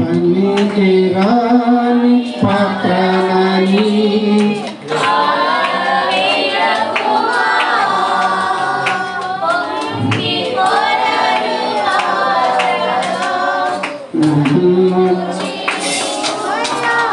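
A man singing a slow Christian worship song into a handheld microphone. He holds long notes with slow bends in pitch, in long phrases broken by short breaths.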